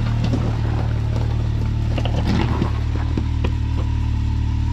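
Side-by-side UTV engine running at a steady low idle, with a few light knocks over it.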